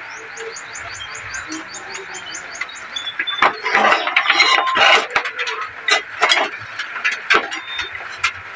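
Thin sheet-metal plates clattering and scraping with sharp clinks as they are handled, the loudest stretch running from about three and a half seconds in to about seven and a half. Before it, a quick run of high chirps, about six a second, over a steady background hiss.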